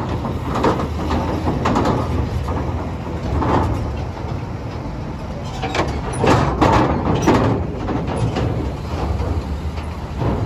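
Heavy truck's diesel engine running low and steady as it hauls a laden lowbed trailer slowly along, with repeated metal clanks and rattles, several close together around six to seven seconds in.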